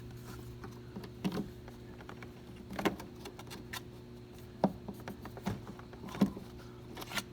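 Scattered light clicks and knocks of hands handling a water-chemistry probe and its plastic strain-relief fitting, about six in all, over a steady low hum.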